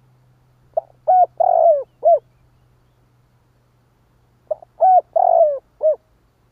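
Spotted dove cooing: two phrases about three seconds apart, each a short pickup note followed by three or four coos, one of them longer and falling. This is the male's territorial call, used to provoke rival doves.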